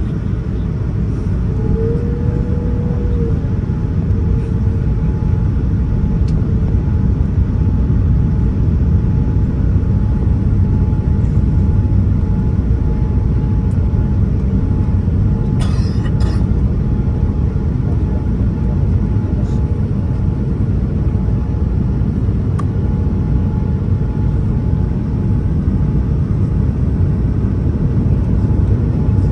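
Steady cabin noise of a Boeing 787-9 airliner in flight on descent: a deep, even rumble and rush of airflow and engines heard from inside the cabin, with a faint steady hum. A brief rustle or click about halfway through.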